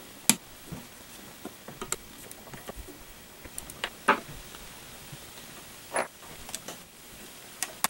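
A screwdriver taking small screws out of a bracket on a power feed's metal housing: scattered light clicks and scrapes of metal on metal. The sharpest clicks come near the start, about four seconds in and about six seconds in.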